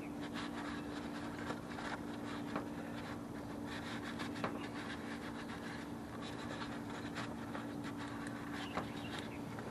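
Paper towel rubbing and wiping over engine-bay parts, with many small scrapes and crackles, over a steady low hum.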